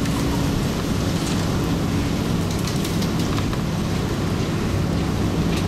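Cabin sound of a Kiha-series diesel railcar running at speed: the steady drone of its DMH17 diesel engine and rumbling wheel noise, with a few light ticks.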